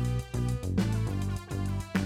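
Background music: a tune with a steady beat over a repeating bass line.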